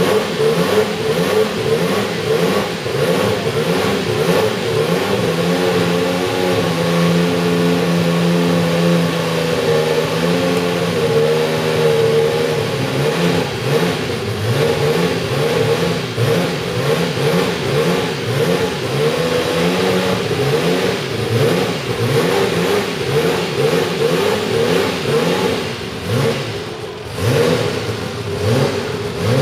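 Ferrari 126C4's 1.5-litre twin-turbo V6 running, blipped again and again with short rising revs. It is held at a steady higher speed for several seconds about a quarter of the way in, then drops briefly near the end before revving up again.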